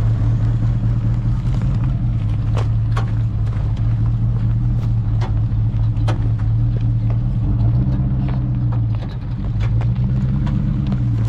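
Range Rover P38's V8 droning steadily as it drives over rough ground, with scattered sharp clunks and knocks from underneath the vehicle. The clunking is a sign that something under the vehicle is not right.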